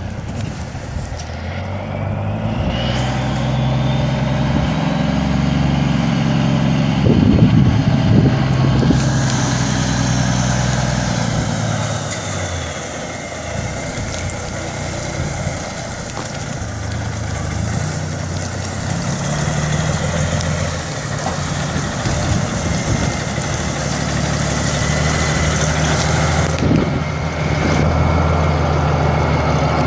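1982 Oshkosh P23236 dump truck's Cummins six-cylinder turbo diesel engine pulling the truck along, its note climbing, falling back about twelve seconds in, then climbing again. A thin high whine rises over the first few seconds.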